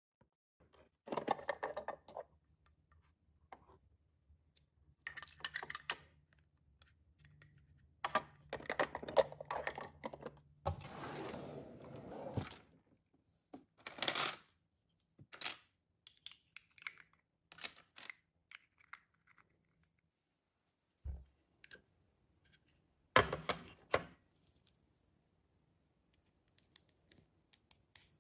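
Small hard plastic miniature pieces clicking, tapping and rattling as they are handled and set in place, in scattered short bursts with some rustling.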